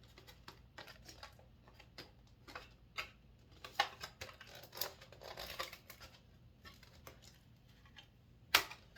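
Action-figure packaging handled while a collector card is worked out of it: scattered small clicks and crinkles of plastic and card, with one sharp, louder snap near the end.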